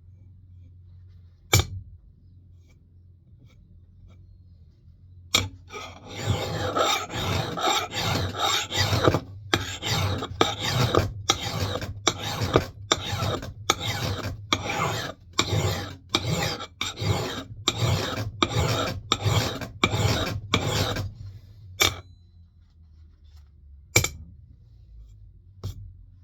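A hand file rasping across the steel edge of a Mann Edge Tool Company knot clipper axe head: a run of about twenty steady back-and-forth strokes, roughly one and a half a second, raising a burr on the bevel. A few single sharp clicks come before and after the run.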